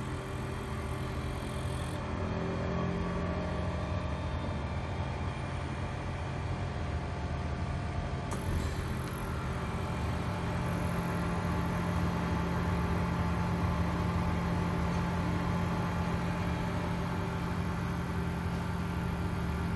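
WDS 580 BGA rework station running: a steady hum from its fans and blowers, with several faint whining tones. The sound shifts a little about eight seconds in and is slightly louder after that.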